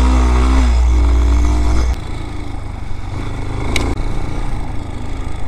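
Vitacci Raven 250's 229cc air-cooled single-cylinder engine running while riding, loud and steady at first; about two seconds in the throttle closes and it drops to a lower, rougher note as the bike slows. A single sharp click near the end.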